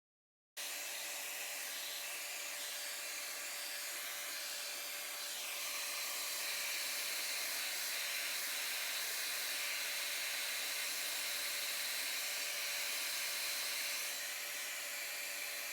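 Hair dryer blowing steadily, with a faint high whine over the rush of air; it starts abruptly about half a second in.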